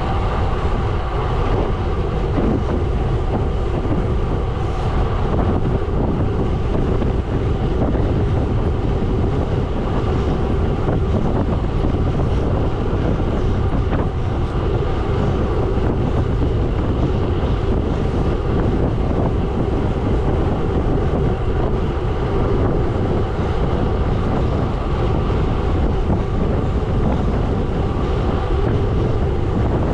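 Gravel bike tyres rolling over a gravel road at speed, a steady rumble with wind noise on the microphone.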